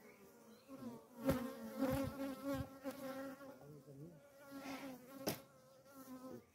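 Honeybees buzzing around an opened hive, a wavering drone that swells and fades as bees fly past. Two sharp knocks, about a second in and again near the end.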